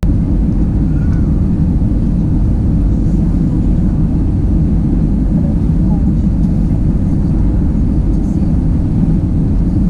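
Steady, loud, low rumble of engine and airflow noise inside an Airbus A320-200 cabin, cutting in abruptly at the start.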